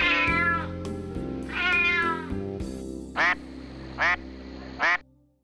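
A cat meowing twice, with the pitch falling, over background music, then three short, evenly spaced animal calls near the end before the music fades out.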